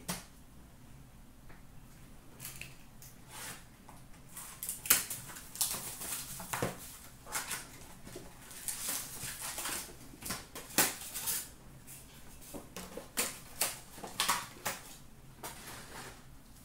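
Hockey card packs and their cardboard box being handled and torn open: irregular rustling and crinkling of wrappers and paper, in short bursts with a few sharper crackles.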